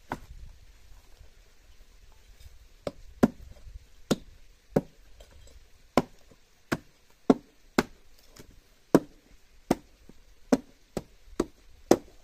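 Chopping with a blade: about fifteen sharp strikes, unevenly spaced half a second to a second apart.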